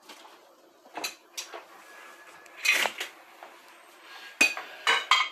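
A kitchen utensil clinking and scraping against a frying pan in a handful of sharp, irregular knocks, the loudest about three seconds in.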